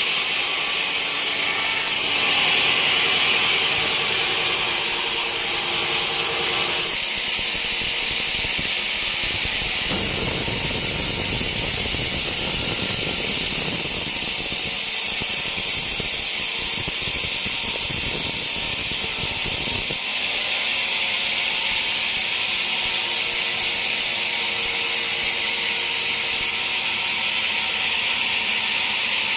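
Band sawmill running and sawing lengthwise through a teak log, a steady loud machine noise that changes character abruptly a few times.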